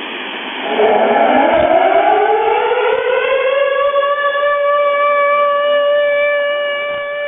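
Siren loop broadcast by a Russian military shortwave transmitter on 6911 kHz, heard as receiver audio over static hiss. About a second in the siren starts low, winds up in pitch, then holds a steady tone with several overtones.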